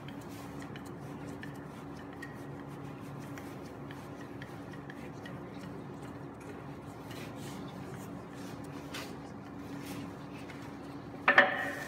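Wooden rolling pin rolling out a block of puff pastry on a floured granite slab: faint rubbing and light ticks over a steady room hum, with one louder knock near the end.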